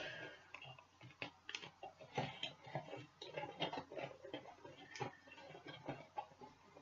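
Rummaging among small boxed puzzle cubes: faint, irregular light clicks and taps.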